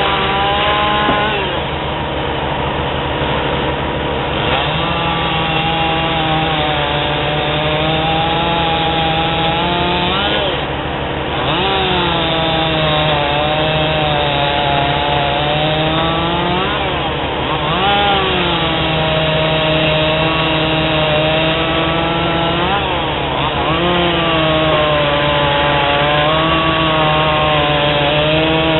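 Stihl MS210 two-stroke chainsaw running at full throttle through small firewood, its engine pitch sagging under load in the cut and rising sharply as each cut finishes, about three times.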